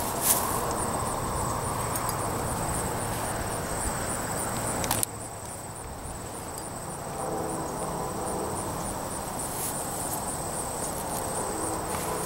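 Field insects chirping steadily in high, evenly repeating pulses over a haze of outdoor noise. The noise drops suddenly about five seconds in, and a faint steady hum joins about two seconds later.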